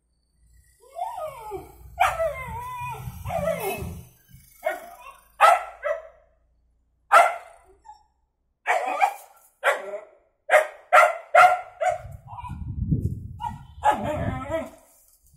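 Black-and-white puppy barking at a kitten: short, sharp barks that come in a quick run in the middle, after some drawn-out, wavering calls at the start.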